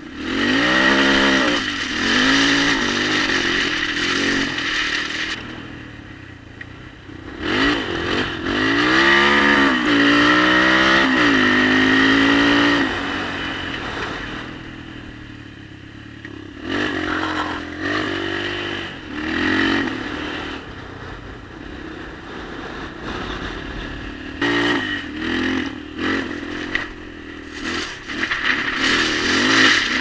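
Enduro motorcycle engine revving repeatedly, its pitch sweeping up and down. There are long pulls near the start and again around ten seconds in, then shorter blips of throttle.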